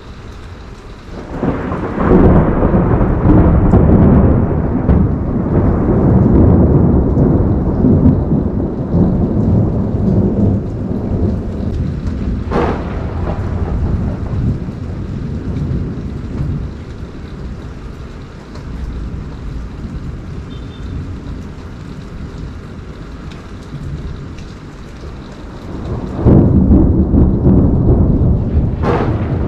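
Thunder rolling over steady rain in a tropical thunderstorm: a long loud rumble builds a couple of seconds in and slowly dies away, with a sharp crack partway through, and a second loud peal breaks near the end.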